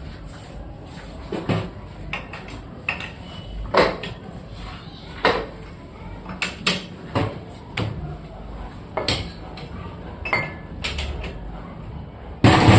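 Metal tools and parts clinking and knocking irregularly, about a dozen separate strikes, over a steady low machine hum, with a louder clatter near the end.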